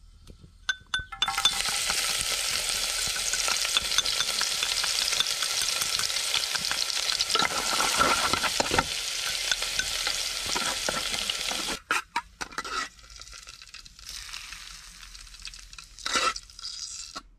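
Chopped scallions sizzling loudly in hot oil in an aluminium pot while being stirred with chopsticks, making scallion oil. A few light clicks come before the sizzle starts about a second in. It stops abruptly about twelve seconds in, leaving a fainter hiss with one short burst near the end.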